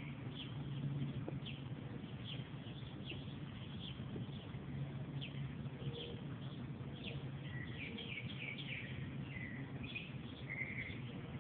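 Small birds chirping: short, quick falling chirps scattered throughout, coming more often in the second half, over a steady low hum.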